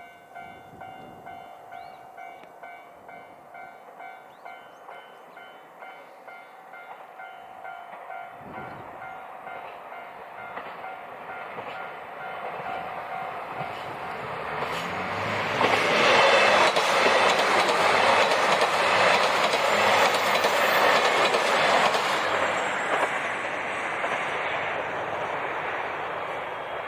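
Japanese level-crossing alarm ringing in an evenly repeating electronic ding-ding. A diesel train then comes up, growing louder, and passes the crossing about halfway through, its wheels clacking rhythmically over the rail joints before the noise tapers off.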